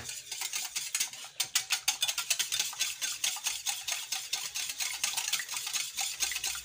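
Wire whisk beating a runny egg, oil and milk batter in a glass bowl: quick, even ticking strokes of the wires against the glass.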